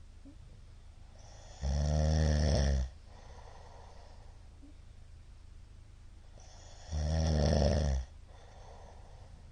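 Middle-aged man snoring in his sleep: two loud, low snores about five seconds apart, each lasting about a second, with faint breathing between. He takes his snoring, with its many shallow hypopneas, for a sign of sleep apnea syndrome.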